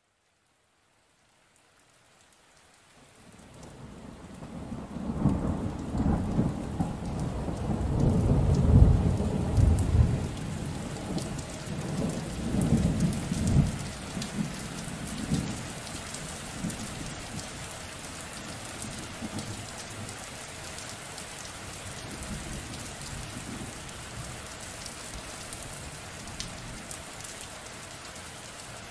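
A thunderstorm: after about two seconds of silence, rain fades in, then thunder rolls for several seconds, loudest about a third of the way in, and dies away. Steady rain continues after it.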